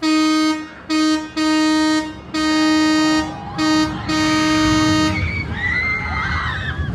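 A single-toned horn blown in six blasts of different lengths, some short and some about a second long, over about five seconds, then it stops.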